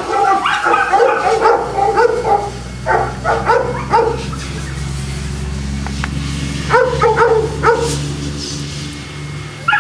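Boston Terriers barking and yipping in short runs, with a lull a little before halfway and a few more barks later. A steady low hum sits underneath.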